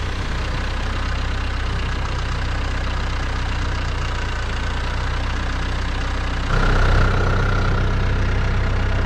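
Compact tractor engine running steadily while its front wheel bears down on a loading ramp laid across a tractor tire to break the bead off the rim. About six and a half seconds in it gets louder, with a steady whine added.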